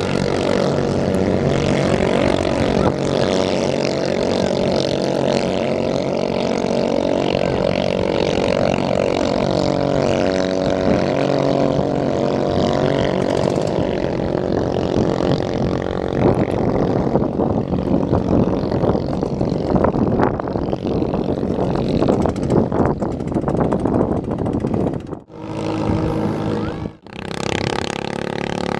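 Engines of several small racing boats running hard at high revs. Their pitches overlap and drift up and down as the boats race past.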